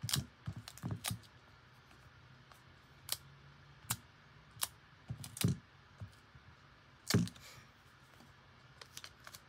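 Scattered light clicks and taps from hands handling a smartphone and a plastic phone case on a desk, coming in small clusters; the loudest knock is about seven seconds in.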